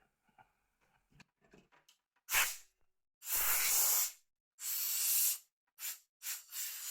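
A few small clicks, then a series of short hissing bursts of air or spray, about five of them, each under a second long.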